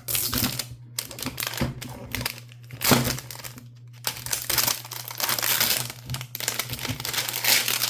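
Plastic packaging crinkling and rustling in repeated bursts as it is handled and pulled open, loudest about three seconds in.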